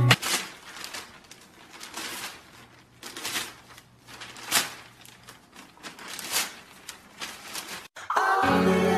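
Newspaper pages rustling and crinkling in irregular short bursts as a dog tugs at them with its mouth. Music comes in near the end.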